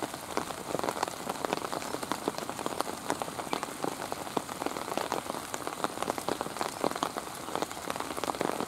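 Steady rain falling, with many close raindrops tapping irregularly, several times a second.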